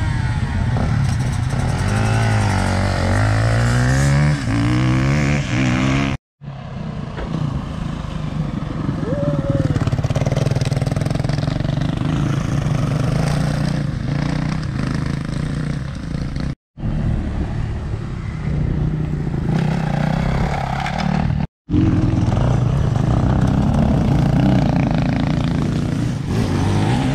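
Enduro dirt-bike engines, first revving with the pitch rising and falling, then running steadily as a bike rides the trail. The sound is split into several clips by three brief silent cuts.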